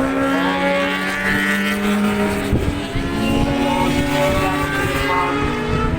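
Racing motorcycles at full throttle, several engines overlapping, their pitch holding high and stepping a few times as they shift gear, over wind rumble on the microphone.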